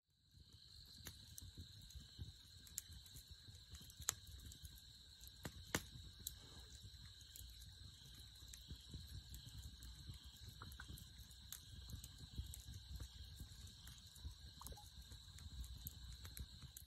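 Burning log campfire crackling: a faint, irregular scatter of sharp pops and snaps, the two loudest about four and six seconds in. Under it runs a steady, high-pitched chirring of crickets.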